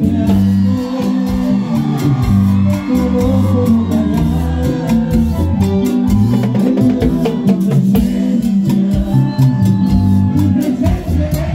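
Live band playing a dance tune amplified through the PA, with a bass line, congas and accordion among the instruments and a steady beat of percussion.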